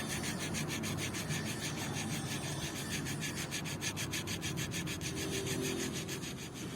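Quick, evenly spaced rubbing strokes of an abrasive working over a part.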